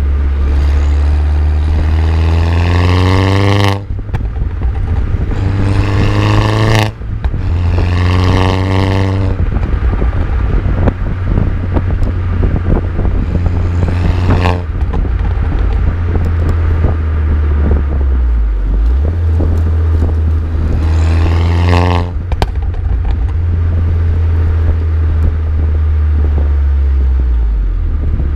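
Mini John Cooper Works R56 with a Scorpion decat downpipe, its turbocharged four-cylinder exhaust rising in pitch through several hard accelerations. Each one is cut off abruptly by a gear change or lift-off, with crackles between pulls. Heavy wind rumble on the microphone underneath.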